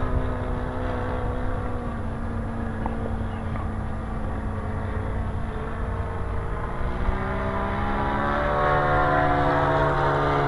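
Four-stroke engine of a radio-controlled Cessna model airplane droning steadily in flight. Its pitch eases down slightly about two seconds in, then rises from about seven seconds in.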